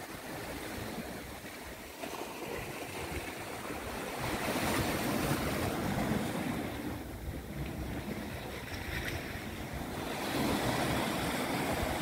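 Sea waves washing and foaming against the shore rocks, with wind on the microphone. The wash swells louder about four seconds in and again near the end.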